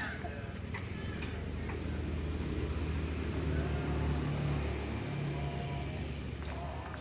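Engine of a homebuilt helicopter running steadily with a low drone, swelling a little in the middle, during an engine check before flight.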